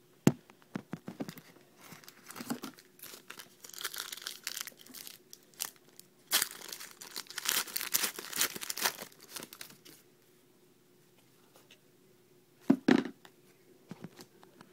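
A foil trading-card pack wrapper being torn open and crinkled in bursts, with a few sharp clicks near the start and about 13 seconds in.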